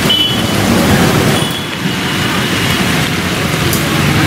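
Street noise in the rain on a waterlogged road: a steady rumble of motor traffic under a hiss of rain, with a few short high tones now and then.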